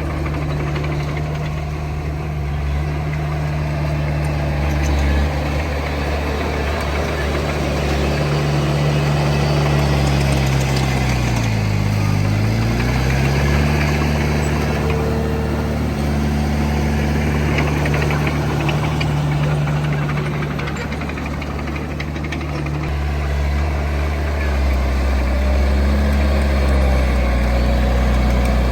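Heavy diesel engine of earthmoving machinery running steadily; about midway its pitch drops sharply and climbs back, as the engine slows and picks up again.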